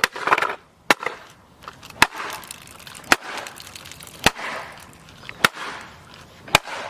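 Six sharp blows struck on a plastic toy race car, evenly spaced about a second apart.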